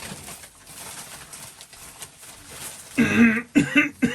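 Faint rustling, then about three seconds in a person breaks into a fit of loud, rapid coughs, several in quick succession.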